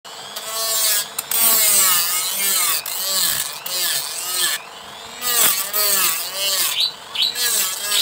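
Handheld rotary tool with a sanding drum running at high speed against the edge of a bamboo cage ring, its pitch rising and falling over and over as the drum is pressed into the wood and eased off. It goes quieter for a moment a little past halfway.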